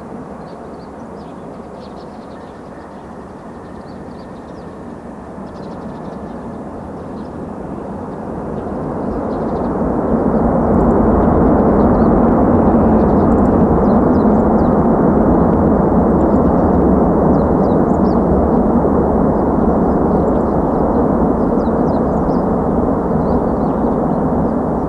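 Jet engines of a landing Boeing 767-300ER in reverse thrust on the rollout, a broad rushing rumble heard from a distance. It swells between about eight and ten seconds in and then stays loud.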